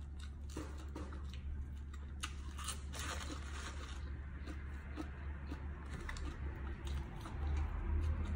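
Close-up chewing of a mouthful of raw vegetables with fish chili dip: small crunches and wet clicks scattered through, over a steady low hum.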